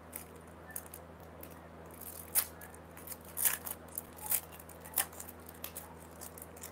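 Rakhi bracelets being handled, giving scattered sharp clicks and light rustles about once a second, over a faint low hum.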